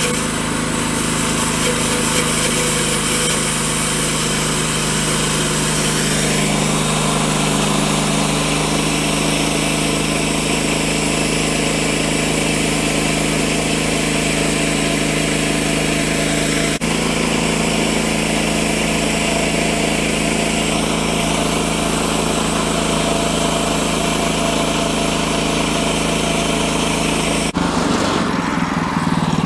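Woodland Mills HM-126 portable band sawmill running steadily under load, its gas engine droning as the band blade cuts lengthwise through an oak log. The sound brightens about 6 seconds in, dips for an instant near the middle, and changes abruptly near the end.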